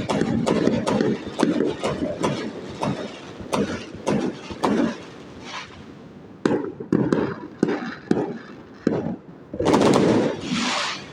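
Fireworks going off in quick succession, a rapid string of sharp bangs and crackles that thins out past the middle, then a louder, longer burst near the end.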